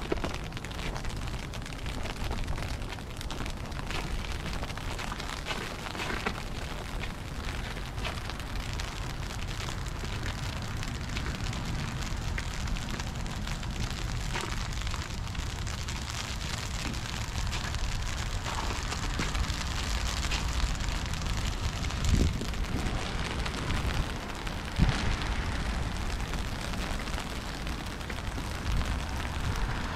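Steady hiss of light sleet falling, with a low rumble of wind on the microphone and a few soft, irregular knocks.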